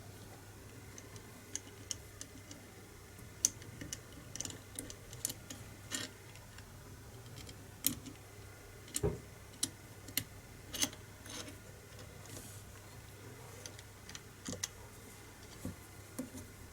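Scattered small clicks and taps of trigger parts and pins being handled and fitted into a B3 air rifle's trigger unit, irregular and a few per second at most, with a heavier knock about nine seconds in.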